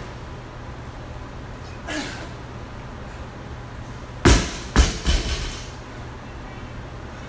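Loaded barbell with black bumper plates dropped onto a rubber gym floor: one loud impact, then two smaller bounces within about a second.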